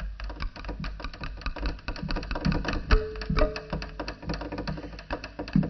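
Fast, dense mechanical clicking clatter over a low hum, with a brief held tone about three seconds in.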